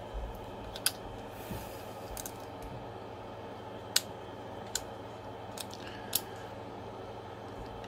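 A few small, sharp clicks and taps of a printed plastic filament-sensor mount being handled and screwed together by hand, the loudest about four seconds in, over a steady low hum.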